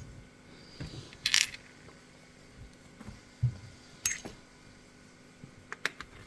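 Small metal parts of a disassembled Izis pump lock clinking and clicking as they are handled and set down. There is a sharp clink about a second in, a few more clicks in the middle, and a quick run of ticks near the end.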